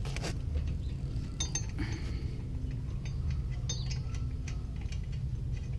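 A handful of light metal clinks from a 1.5-inch wheel adapter being handled and seated over a car's hub studs by hand, over a steady low rumble.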